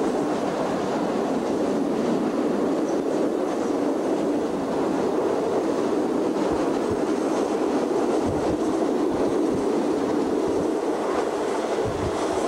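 Passenger train of the State Railway of Thailand running, heard from inside a carriage with open windows: a steady, even noise of the moving train.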